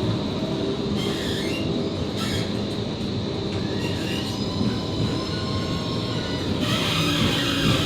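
Končar TMK 2200 low-floor tram running, heard from inside: a steady rolling and running rumble, with thin high wheel squeals on the rails about a second in and again near the end.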